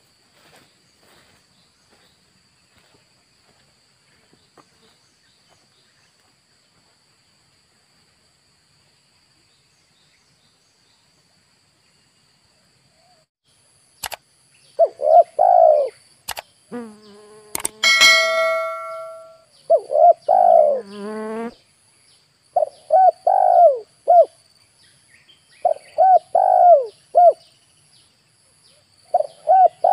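Spotted dove (tekukur) cooing, its rhythmic phrases repeated every few seconds, starting about halfway through after a long quiet stretch. A single bright metallic ding rings out shortly after the cooing begins.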